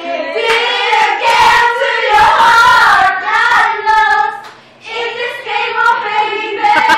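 Several women's voices singing loudly together, overlapping and uneven, with a short lull a little past the middle.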